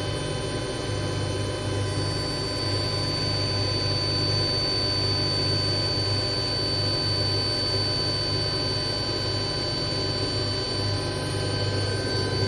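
Hotpoint Aquarius WMA33 washing machine running steadily: a constant low motor hum with several steady whining tones, and a high-pitched whine that comes in about two seconds in.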